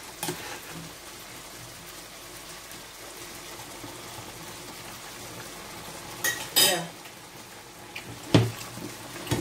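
Steady low sizzle of seafood and tomato sauce frying in a pan, with a few sharp metal clinks and clatters of cookware and utensils, a cluster about six and a half seconds in and the loudest near the end.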